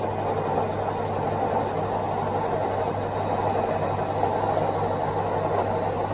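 LG F12B8ND front-loading washing machine spinning at 1200 RPM on its spin cycle: a steady hum and rush of the drum at full speed, with a thin high whine over it.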